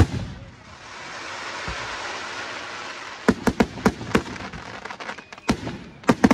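Aerial firework shells bursting: a sharp bang at the start, then a couple of seconds of crackling hiss. A quick run of about five bangs follows, and a few more come near the end.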